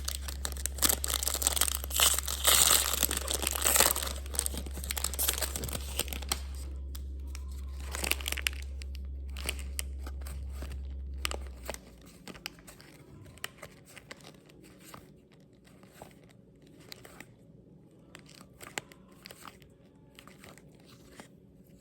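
Plastic wrapper of a trading card pack being torn open and crinkled for the first few seconds, followed by scattered light clicks and taps as the cards are handled.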